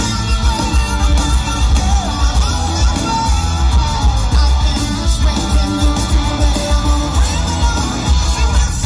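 Live rock band playing a song: a lead singer over drums, bass, electric guitar and keyboards, heard loud and bass-heavy from the audience seats.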